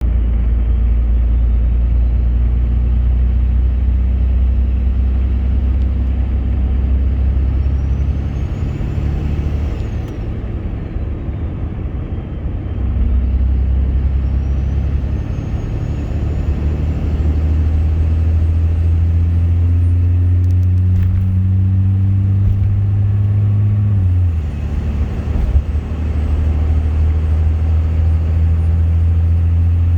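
Cummins turbo-diesel engine running with a deep rumble and a thin turbocharger whistle over it. The whistle's pitch follows engine speed: it climbs about nine seconds in, drops back around eleven to twelve seconds, then climbs high again and stays up, with a brief dip near twenty-five seconds.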